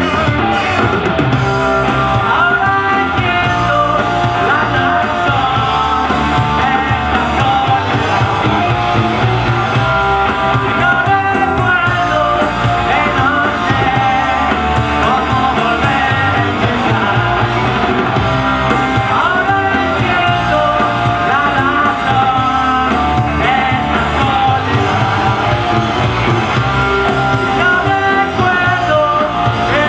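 Live rock band playing a song on electric guitars and drum kit, at a steady, loud level.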